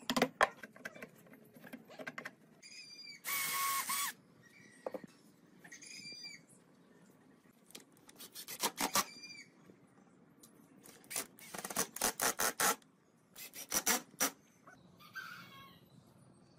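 Bird calls from fowl, several short calls and one call of about a second, between bursts of rapid sharp clicks and taps from woodworking tools.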